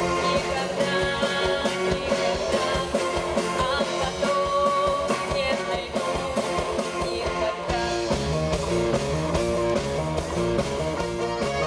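A pop song's instrumental accompaniment playing with a steady beat; about eight seconds in, the bass line shifts to a new, bouncier pattern.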